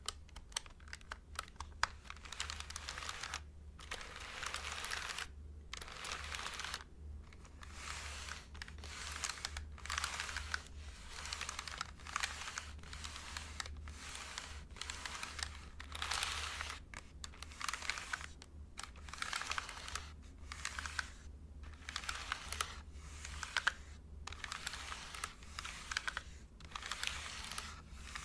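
Typing on a computer keyboard, close up. For about two seconds the keys click one at a time, then fast typing follows in bursts of a second or two with short pauses between them.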